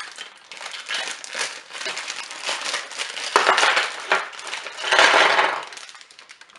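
Packaging from a Duplo set being handled and opened, crinkling and crackling, loudest from about three and a half to five and a half seconds in.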